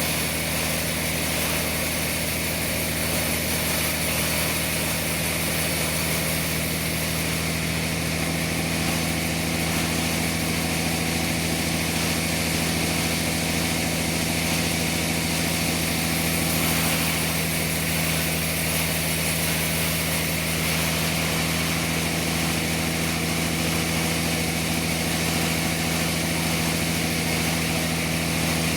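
Sawmill machinery running steadily: a constant engine-like hum that holds the same pitch and level throughout.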